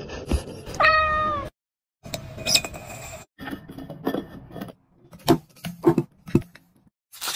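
A cat meows once, about a second in, the loudest sound here. Then come short clinks and taps of glassware on a china plate and a clear cup, as a sugared glass rim is pressed on a plate and strawberries drop into a cup.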